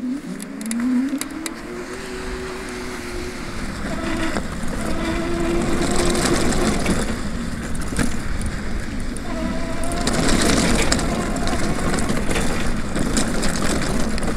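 An electric bicycle ridden fast on a dirt path: a motor whine that rises in pitch as it speeds up at the start and comes and goes after that, over the rush of wind on the microphone and tyre noise.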